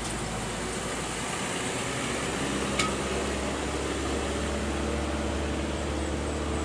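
Motor vehicle engine running steadily over road noise: a low, even hum that comes in about a second in and holds. A single sharp click near three seconds.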